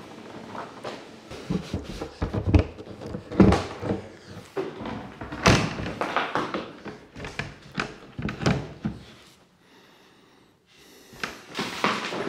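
A heavy panelled wooden door, taken off its hinges, being carried and set up against a doorway: a run of irregular knocks and thunks as it bumps the floor and frame. There is a short lull near the end before a few more knocks.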